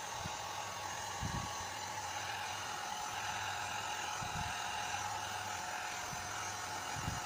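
Small handheld hair dryer running steadily, a motor whine over rushing air, blowing on a circuit board to dry it after washing. A few faint low thumps come through under the airflow.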